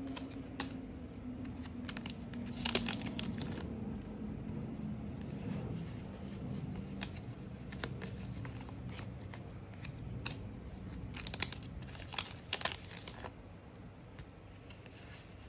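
Trading-card booster packs and cards being handled: short crinkling, tearing and snapping sounds, clustered about three seconds in and again near the end. Underneath, an airplane drones overhead, its pitch sliding down over the first few seconds.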